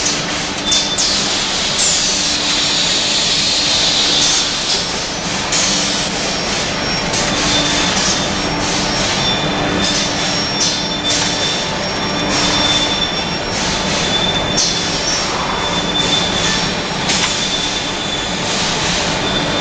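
Automatic cake production line machinery running steadily. It has a low hum, a high whine that comes and goes, and repeated short bursts of hiss.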